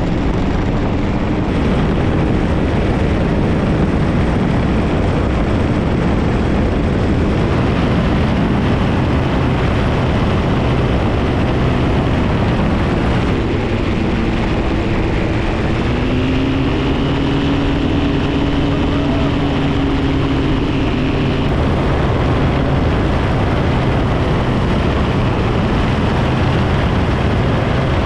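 Paramotor engine and propeller running steadily, heard under heavy wind rush on the microphone; a clearer engine tone stands out for several seconds in the middle.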